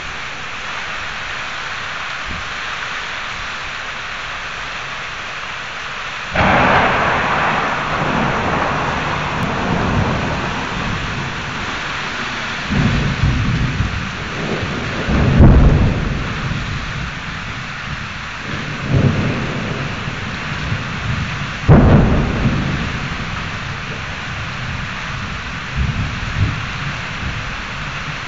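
Thunderstorm: steady rain throughout, with a sudden clap of thunder about six seconds in, followed by rolling rumbles of thunder that swell several times and die away near the end.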